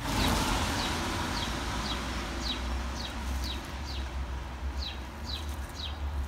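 A small bird chirping over and over, about two short downward-sliding chirps a second, over a steady outdoor hiss and a low rumble.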